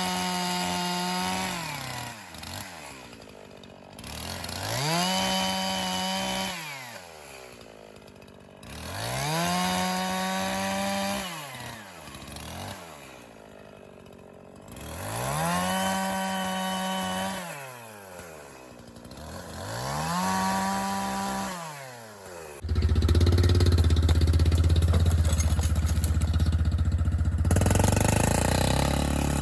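A 50cc two-stroke chainsaw is revved to full throttle, held there through a cut for about two seconds, then let back down to idle. It does this five times, about every four to five seconds, while bucking ash into firewood rounds. Near the end a louder, deeper engine starts running steadily.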